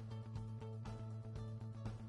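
Background music with a steady beat over a held bass note.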